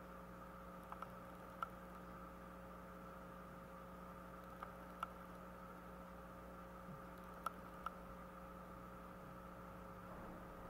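Faint, steady electrical hum with a handful of short, sharp clicks scattered through it.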